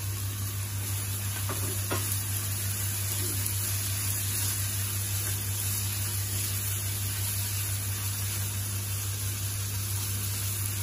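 Chopped tomatoes and onions sizzling steadily in oil and butter in a kadhai as they are stirred with a silicone spatula. A steady low hum runs underneath.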